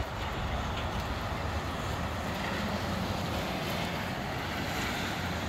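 Gusty wind rushing steadily through the trees, with a low rumble of wind buffeting the microphone.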